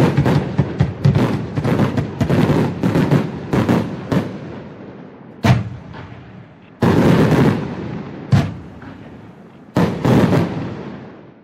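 A fireworks battery (cake) firing: a quick run of launch and burst shots, each trailing off in a crackling rumble, then slower, separate bursts about a second or more apart before it stops near the end.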